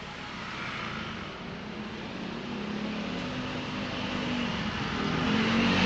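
A motor vehicle's engine passing close by, growing steadily louder as it approaches and loudest at the end.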